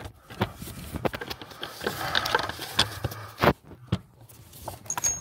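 Gloved hands working on parts under a car, fitting a small cover and handling the steering parts: scattered clicks and knocks with some scraping, the loudest knock about three and a half seconds in.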